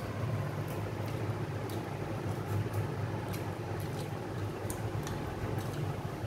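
Two people eating rice and mutton curry with their hands: faint scattered clicks of chewing and mouth sounds, and fingers wiping over ceramic plates, over a steady low room hum.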